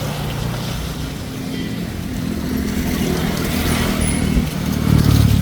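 Road traffic passing close by: a vehicle engine running under a hiss of tyres on the road, getting louder near the end.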